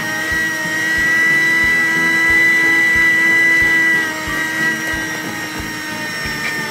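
Small handheld car vacuum running with a steady high-pitched motor whine; it gets slightly lower and quieter about four seconds in.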